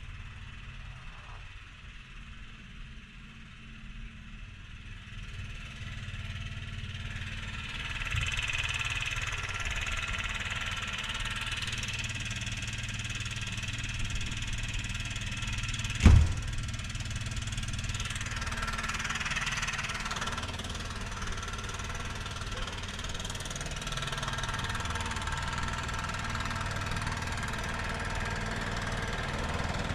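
Snowblower engine running steadily, growing louder about a quarter of the way in, with one sharp knock about halfway through.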